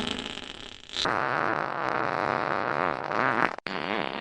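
Fart sounds: a fading tail, then one long fart wavering in pitch from about a second in, cut off suddenly, with another starting just after.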